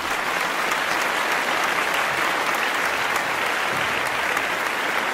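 Recorded applause: many hands clapping in a steady, dense patter.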